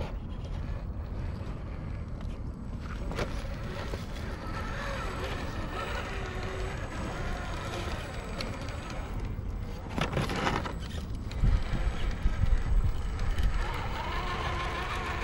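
Electric RC rock crawlers climbing bare rock, their motors and gearboxes giving a thin wavering whine, over a low rumble of wind on the microphone. A cluster of knocks comes about two thirds of the way through, as the trucks bump over the rock.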